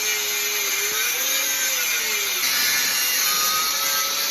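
Angle grinder running on steel, grinding down a fresh weld on a repaired lower strut. Its motor pitch sags and recovers as it bears on the metal.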